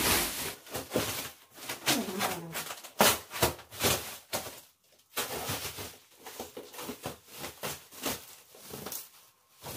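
Plastic sheeting and bubble wrap rustling and crinkling as they are pulled off a sofa bed, in a run of irregular crackles with short pauses between them.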